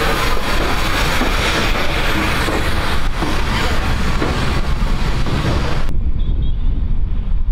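Bulleid Merchant Navy class steam locomotive 35006 moving out past the microphone, a dense hiss and rumble of engine and tender. About six seconds in, the sound cuts abruptly to low wind buffeting on the microphone.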